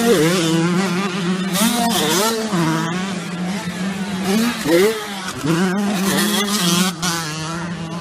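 85cc motocross bike engines revving hard, the pitch rising and falling again and again as the riders take the jumps.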